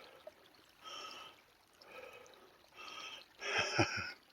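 A person breathing audibly in and out about once a second, the last breath the loudest, over a faint trickle of a small seasonal stream.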